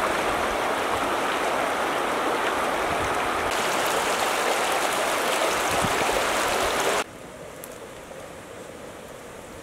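Shallow river flowing over stones: a steady, even rush of water that cuts off suddenly about seven seconds in, leaving only a faint hiss.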